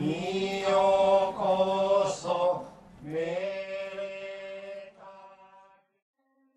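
Noh chanting (utai): a man's voice in long, slowly wavering held notes, fading out about five seconds in.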